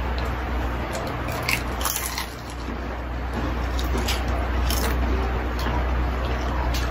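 Crunching bites and chewing of crispy deep-fried chicken skin, with a handful of sharp crackles. Behind it, the steady hiss of heavy rain.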